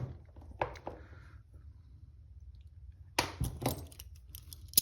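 Steel handcuffs handled: scattered metal clicks and clinks, with a cluster of sharp clicks about three seconds in and a single sharp click near the end.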